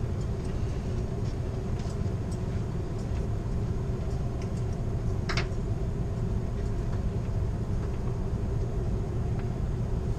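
Steady rumbling running noise inside the rear car of Amtrak's California Zephyr as the passenger train rolls along the track, with a brief sharp click about five seconds in.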